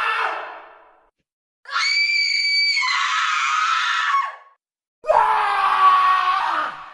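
Screaming sound effects played one after another: a scream fades out in the first second, a high-pitched scream runs from about one and a half seconds to four and a half, and another scream starts at about five seconds and fades near the end, with brief silences between them.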